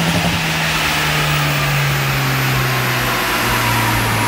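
A car engine running hard on a rolling-road dyno, its revs winding down gradually with a steady drop in pitch, over the noise of the rollers and fans.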